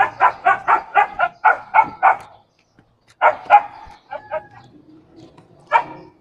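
A dog barking: a quick run of about ten barks over the first two seconds, then two more barks about three seconds in and one near the end.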